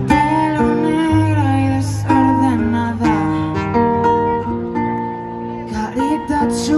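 Live pop music played through an outdoor concert sound system, with strummed guitar chords over a steady bass line.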